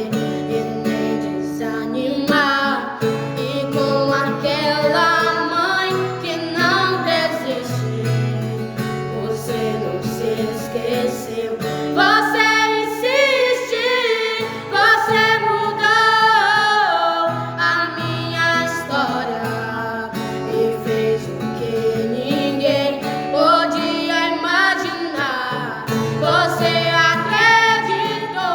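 Christian worship song sung by voices including a woman's, to acoustic guitar accompaniment.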